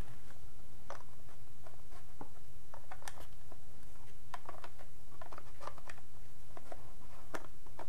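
Plastic lens hood clicking and scraping against a camcorder's lens as it is lined up and twisted on: scattered light clicks and taps over a steady low hum.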